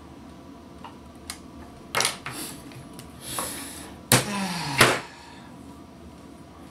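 A salvaged circuit board being handled and turned over on a workbench: a few knocks and short scrapes, the two loudest a little over four seconds in, less than a second apart.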